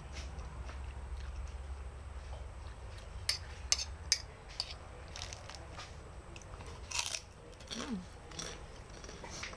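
Close-miked eating of spicy instant noodles: chewing and biting, with sharp mouth clicks scattered through, the loudest about seven seconds in, over a low steady hum.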